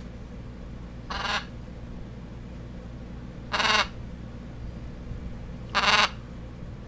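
A pet's short, harsh call, given three times about every two and a half seconds. This is a new habit that shows whenever it is out of its cage.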